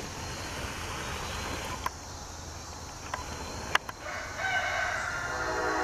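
A rooster crowing once, one long call starting about four seconds in, over a steady background chirring of crickets.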